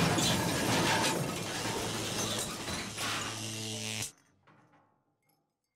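A harsh noisy sound effect, a dense crackle with a steady low hum beneath it, cutting off suddenly about four seconds in.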